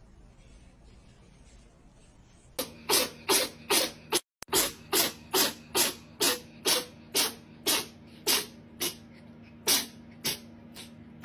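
A cat makes short breathy huffs in a quick, even rhythm, about two a second, starting a couple of seconds in.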